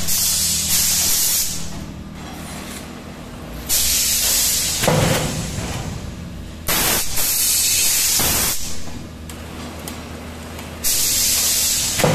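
Pneumatic system of a nursery tray forming machine: compressed air hisses in sharp-starting bursts of one to two seconds, roughly every three to four seconds, over a steady low machine hum. A low thud comes about five seconds in.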